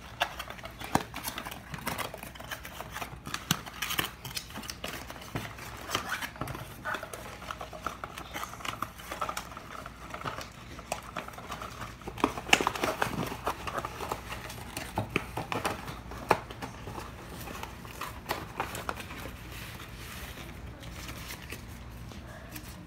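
Hands unpacking a plush toy from its cardboard box: scattered clicks, taps and rustles of cardboard and packaging, loudest in a cluster a little past the middle.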